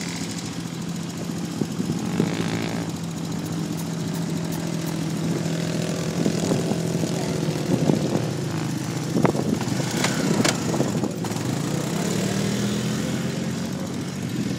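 ATV engine running: a steady drone for the first half, then uneven and changing in pitch as it is ridden across the sand, with a slight rise near the end.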